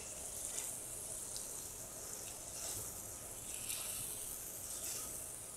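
Squid sofrito frying in a stainless steel sauté pan over a gas burner: a faint, steady sizzle as it cooks.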